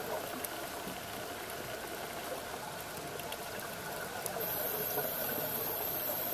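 Underwater ambience on a scuba dive: a steady, muffled rush of water noise with a few faint ticks, and a thin high whine that starts about four seconds in.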